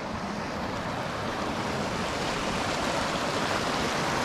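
Mountain stream rushing over rocks, a steady watery rush that grows a little louder.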